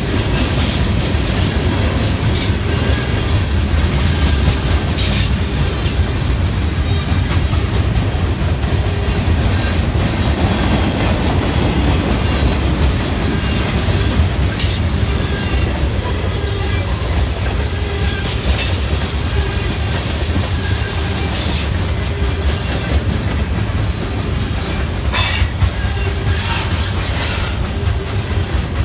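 Train rolling past with a steady heavy rumble, the wheels clicking over rail joints every few seconds, with faint thin wheel squeal.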